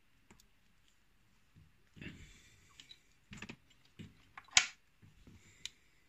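Small metal clicks and fingertip rustling as an Evva euro cylinder lock, with a shim in it, is handled during disassembly. There is one sharper click about four and a half seconds in.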